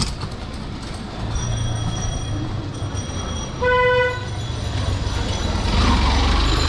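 A vehicle horn gives one short toot about halfway through, over the steady low hum of an engine running in the street, which grows louder near the end.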